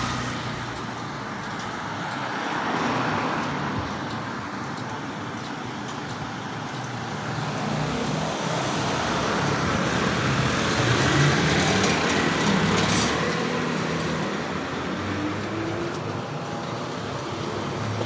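Street traffic: motor vehicles driving past at close range, their engine and tyre noise swelling as each goes by, loudest a little past the middle as a small truck passes.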